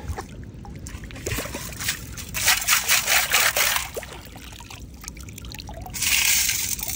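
Water pouring and splashing out through the holes of a perforated metal sand scoop lifted from shallow river water, in a run of quick gushes from about two and a half seconds in, with another rush of noise near the end.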